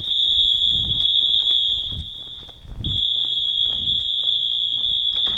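Fire alarm sounding one steady high-pitched tone; it dips and cuts out for a moment about halfway through, then carries on.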